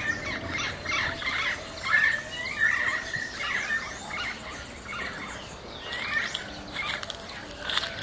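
Many wild birds calling and singing at once: a dense, overlapping mix of short chirps and whistled notes, with a couple of held whistles about two to three seconds in.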